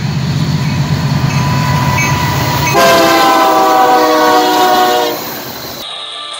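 Union Pacific diesel freight locomotive passing close by: the engine's low rumble, then a multi-note air horn blast of about two and a half seconds starting a little under halfway in. The horn fades out and a different, thinner sound cuts in near the end.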